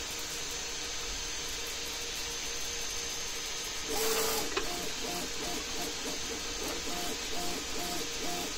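3D printer running: steady cooling-fan hiss with faint stepper-motor tones, then a brief loud rush of noise about four seconds in. After it the stepper motors sing in short repeated notes, about three a second, as the print head sweeps back and forth laying down infill.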